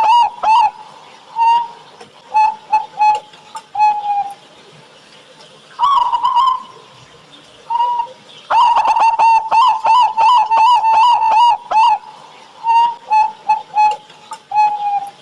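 Zebra dove (perkutut) singing its cooing song twice: each time a fast stuttering run of coos, then a few spaced single coos ending in a slightly longer note, with a short held coo between the two songs.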